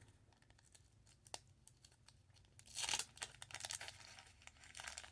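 The wrapper of a 1989 Topps baseball card pack being torn open and crinkled by hand. The tearing and rustling starts almost three seconds in, after a single faint click.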